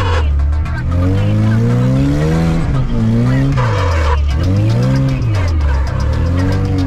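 A VAZ Zhiguli's engine revving up and down as the car slides sideways on a snowy road, with phonk music playing over it.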